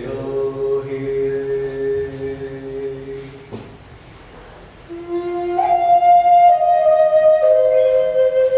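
A long held chanted note from a low male voice fades out over the first three and a half seconds. About five seconds in, a Native American wooden flute begins a slow melody of long held notes that step down in pitch.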